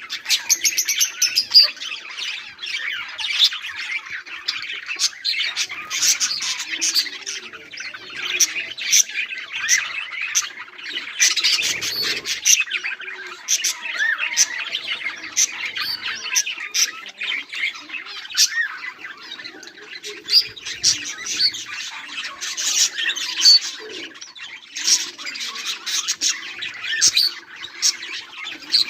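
A flock of pet budgerigars chirping, warbling and squawking together in a dense, continuous chatter with many short sharp calls.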